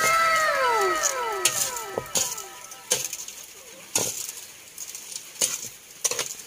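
A ladle scraping and knocking against a wok as dark-roasted corn kernels are stirred, with sharp knocks roughly every half second to second over a scratchy rustle. It opens with a loud ringing whose several tones fall in pitch over about two seconds.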